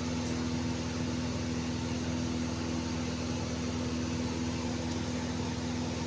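Steady electric motor hum with a low drone and a haze of airy noise, unchanging throughout.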